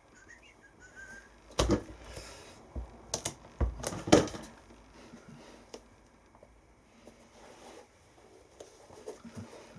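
Handling noise from a shoe being pressed together after super-gluing: a faint squeak near the start, then a handful of sharp knocks and taps against the desk, loudest around two and four seconds in, fading to soft rustling.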